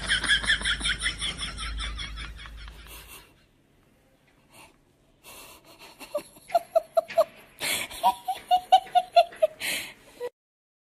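A person laughing: a quick run of high-pitched "ha"s that fades out over about three seconds. After a short pause, more runs of laughter follow at a lower pitch.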